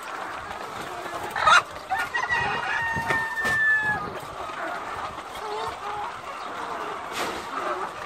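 A shed full of caged layer hens clucking and calling over one another while they feed at the troughs. A sharp squawk stands out about a second and a half in, and one long, level call follows from about two to four seconds.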